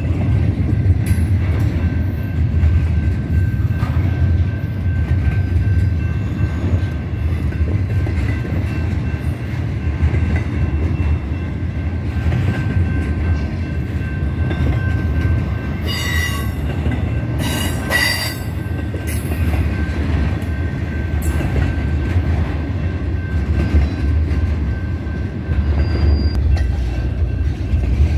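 Double-stack intermodal container train rolling past, a steady low rumble of wheels on rail. Two brief, sharp metallic noises come just past the middle.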